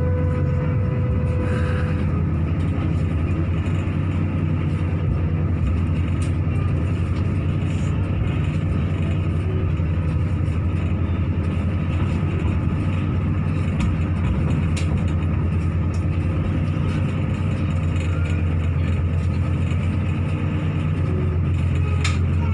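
Light rail car running along its track, heard from inside the cabin: a steady low rumble of wheels and motors. A steady whine fades out about two seconds in, and a few sharp clicks come near the end.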